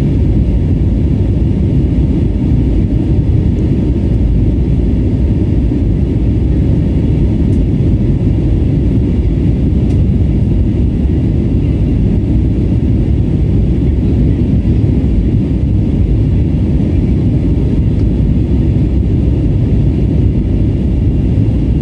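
Steady cabin rumble of an Airbus A320neo in flight: its Pratt & Whitney geared turbofan engines and the airflow make an even low drone, with a faint high steady whine above it and no change in pitch.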